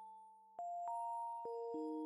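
Background music of calm held notes. Four new notes come in one after another, each struck cleanly and left ringing under the next.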